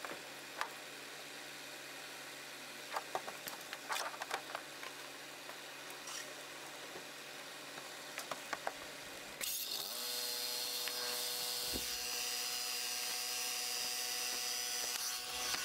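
Scattered light clicks and knocks of gear being handled in a pickup truck bed, over a faint steady hum. About halfway through, the background switches to a louder steady hum with a high hiss.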